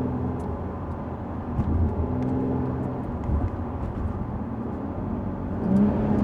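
Mercedes-Benz 2012 SLK roadster's engine running as the car is driven, its pitch rising and falling with the revs.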